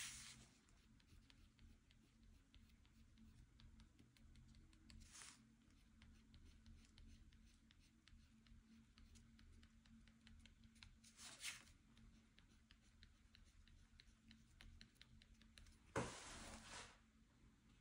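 Faint scratching of a drawing tool on paper: a few short strokes, the longest and loudest lasting about a second near the end, over near-silent room tone.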